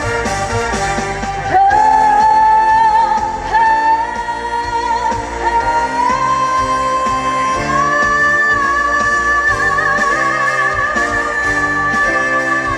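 Live pop-rock band music, loud, with a long held melody line wavering in vibrato and stepping up in pitch a few times over a steady beat and bass.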